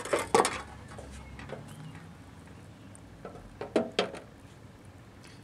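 Wire mesh basket of a stainless steel deep fryer clinking and knocking against the pan as it is handled and lifted out: a few short metal clicks near the start and again around four seconds in.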